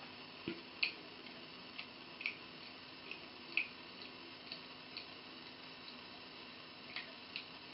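A thin stream of water runs from a bathroom sink tap into the basin with a steady faint splashing. About ten irregular, short high plinks of drops land in the water on top of it.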